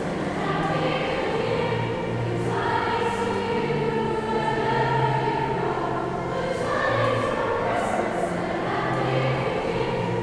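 High school choir singing in several parts, holding long chords that change every few seconds.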